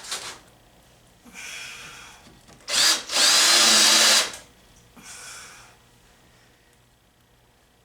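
Power drill driving screws to fasten the vise deck down. It runs in four short spurts, and the longest and loudest, about a second long, comes about three seconds in with a rising motor whine.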